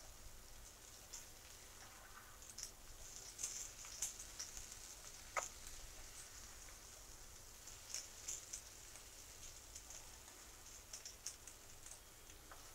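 Faint, irregular light ticks and crackles of a spatula turning shallow-fried arbi pieces in a non-stick pan, with light crackling of the frying oil. There is one sharper tap about five seconds in.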